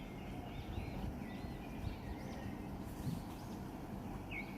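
Faint small birds chirping in short repeated calls over a steady low background hum, the chirps coming in a quick run near the end.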